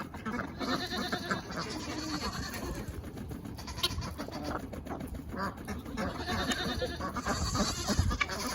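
A flock of farmyard poultry, chickens and ducks, calling and clucking at feeding time: a busy jumble of many short overlapping calls.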